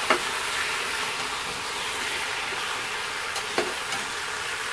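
Chopped squash, zucchini and onion sizzling in a stainless steel pot with fatback, a steady hiss, as the vegetables are stirred by hand. Two light clicks come through, one near the start and one about three and a half seconds in.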